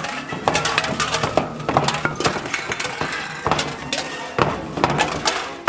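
Many drink containers tumbling out of a vending machine, a rapid, uneven run of clattering knocks and clinks.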